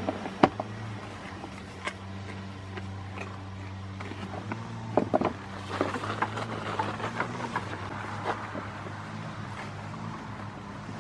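A goat rooting and wrestling with its head inside a cardboard box: irregular cardboard crackles, scrapes and knocks, the sharpest about half a second in and a busy run of them in the middle. A steady low hum runs underneath.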